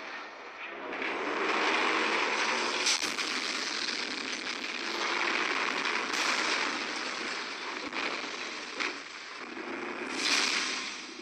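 Action sound effects from an animated fight: a loud rushing like jet thrusters, swelling and fading several times, with a few sharp cracks about three, six, nine and ten seconds in.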